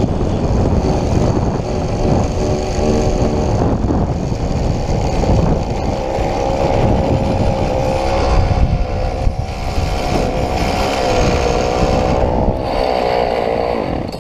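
Homelite chainsaw's two-stroke engine running hard as it drives a bicycle, its note wavering and then climbing about six seconds in and holding high, over heavy wind rumble on the microphone.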